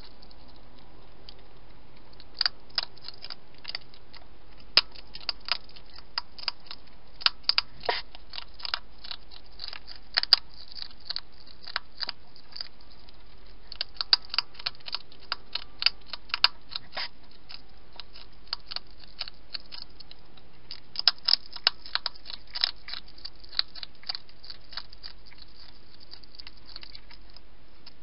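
European hedgehog eating from a dish: irregular runs of sharp crunching and chewing clicks, with short pauses between mouthfuls.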